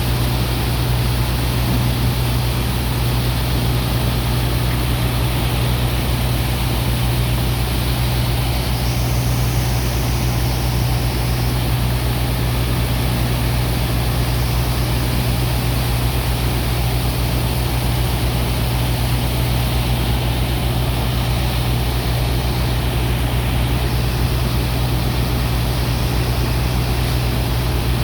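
Sand dredger's pump machinery running with a steady low drone, over a constant rush of water and sand being pumped.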